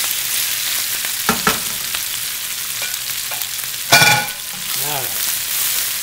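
Fresh spinach and basil leaves sizzling in hot olive oil in a skillet, a steady hiss, as they are turned over by hand. There is a brief louder knock about four seconds in.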